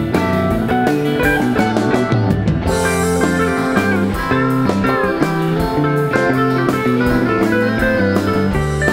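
A live rock band playing an instrumental jam: electric guitars leading over bass, drums and keyboards, with the notes running on without a break.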